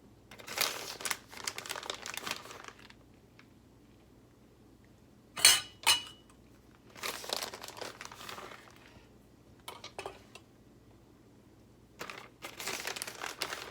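Kitchen handling sounds from quesadilla assembly: three spells of crinkling rustle, and two sharp clinks of kitchenware half a second apart about five and a half seconds in, the loudest sounds here.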